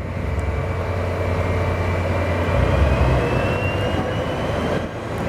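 A large vehicle running with a steady low rumble and a faint whine that rises slowly in pitch.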